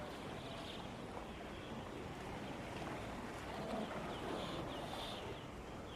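Open-air street ambience: a steady wash of background noise with faint, distant voices, and a few short high chirps near the end.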